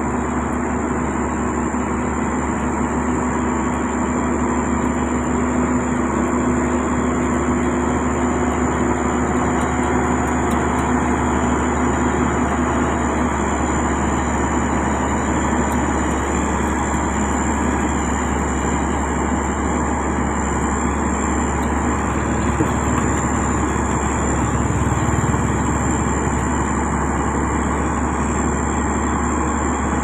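Diesel engine of a heavy road-construction machine running steadily, with a steady high whine throughout and a low hum that fades out about halfway through.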